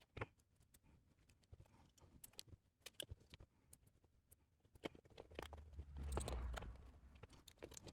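Faint scattered clicks and taps of small 3D-printed plastic parts and hardware being handled during assembly, with a louder low rubbing handling noise about six seconds in.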